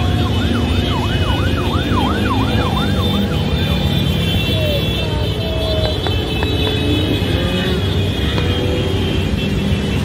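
A large mass of motorcycles passing on a highway, their engines blending into a loud steady drone. Between about half a second and three seconds in, a quick rising-and-falling wail repeats several times over the engines.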